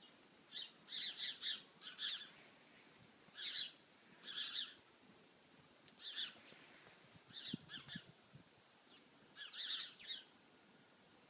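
Birds calling: short bursts of quick, high notes, repeated about once a second with short pauses between them.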